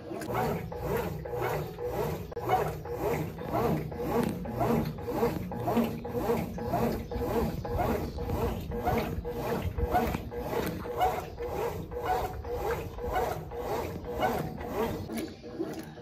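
Brastemp Ative 9 kg (BWL09B) top-loading washing machine agitating three soaked blankets in water. Its agitator swishes back and forth about twice a second with a rubbing, sloshing stroke. The agitation runs a little slow, which the owner puts down to a weak motor capacitor or a stiff new mechanism.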